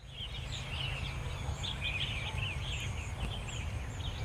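Small birds chirping over and over, many short quick calls, over a low steady rumble of outdoor background noise.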